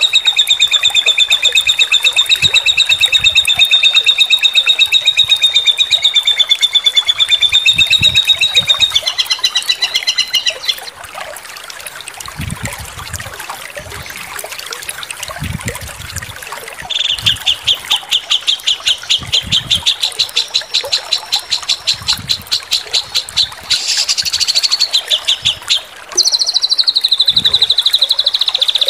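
Songbird song for a masteran training track: long, fast trills of rapidly repeated high notes. A trill of about ten seconds, a short lull, then a second fast trill that turns buzzier and higher around 24 s and slides downward near the end.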